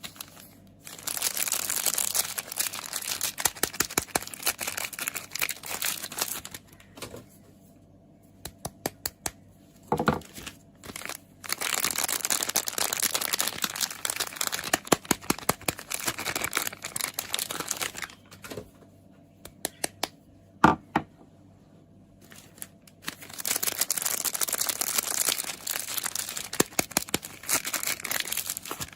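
Soap packaging being unwrapped by hand: crinkling and tearing of the wrapper in three long stretches, with scattered sharp clicks and taps in the quieter pauses between.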